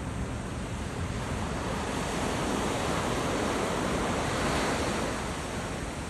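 Sea waves breaking on the shore in a steady wash of surf. A wave surges up about halfway through and eases off near the end.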